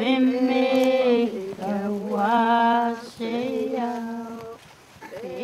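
A voice singing slowly, holding long, steady notes of about a second each with short slides between them, pausing briefly near the end before starting a new note.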